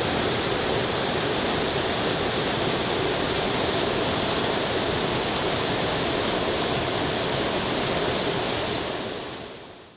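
Steady rushing of a waterfall, fading out near the end.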